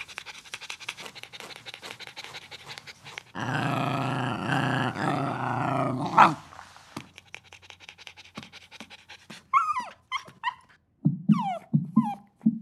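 A cartoon dog whimpering: from about ten seconds in, short high whines that bend in pitch, with lower yelps between them. Before that comes a run of faint rapid clicks, then a loud noisy stretch of about three seconds that ends in a quick rising squeal.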